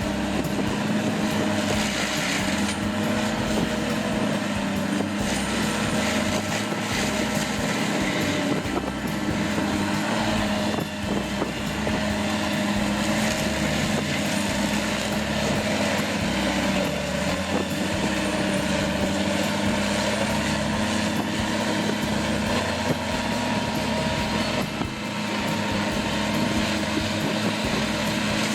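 A heavy machine's engine running steadily under load, a constant drone with a noisy grinding haze over it.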